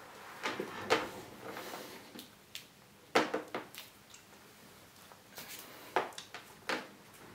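Power adapter and its cable being picked up off a desk, knocking and dragging on the tabletop: a string of sharp clacks, the loudest about a second in, a quick cluster about three seconds in and another near six seconds in.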